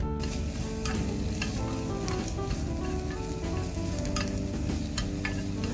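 Food sizzling in a frying pan while being stirred, with occasional sharp clicks of the utensil against the pan.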